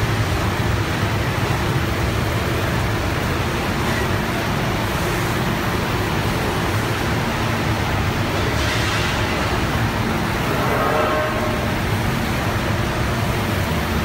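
Steady, loud running noise of a microwave conveyor drying machine for fish-feed pellets in operation.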